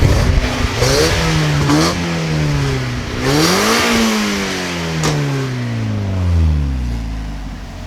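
1.6-litre four-cylinder engine of an NA6 Mazda Miata with a Yonaka aftermarket exhaust, heard from inside the cabin. It revs up through the gears with a brief dip at a shift about two seconds in, climbs again, and then winds down slowly as the car slows. The note is one the occupants find barely different from stock.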